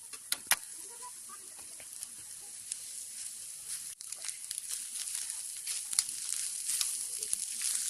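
Egg fried rice sizzling in a frying pan, a steady hiss that grows slightly louder, with sharp clicks of a spatula knocking against the pan as it is stirred.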